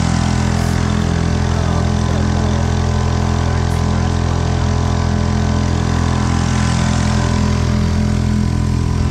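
Tender's outboard motor running steadily at constant speed as the dinghy moves across the water.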